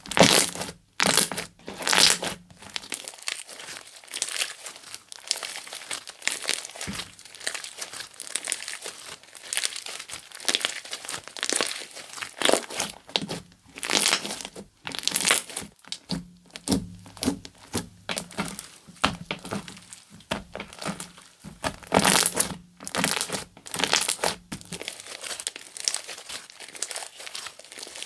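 Slime being squished, pressed and stretched by hand, giving irregular crackling, popping squelches, several a second.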